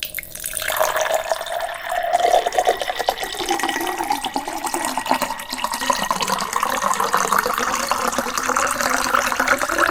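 Hot herbal tea being poured through a strainer into a vessel: a steady stream of liquid splashing and filling.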